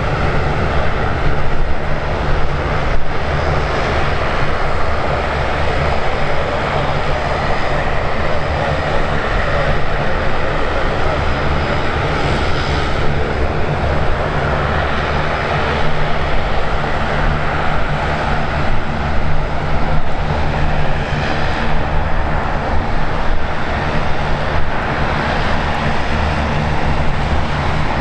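Aircraft engines running steadily and loudly, without a clear rise or fall.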